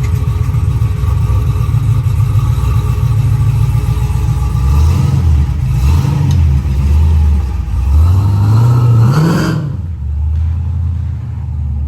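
1987 Chevy Caprice's 6.0 V8 engine pulling the car along, its pitch rising steadily under acceleration near the end, then dropping off suddenly to a lower steady drone.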